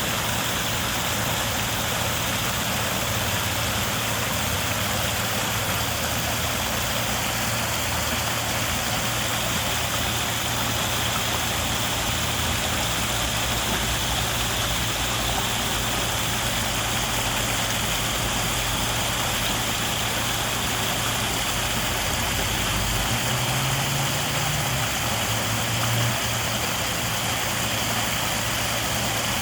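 Waterfall rushing in a steady, even roar, with a low hum underneath that rises briefly near the end.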